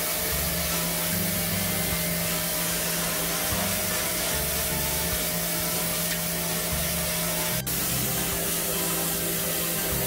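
High-pressure washer jet spraying water onto an air-conditioner outdoor unit's casing for its first rinse: a steady hiss over a steady hum, with one short break about three-quarters of the way through.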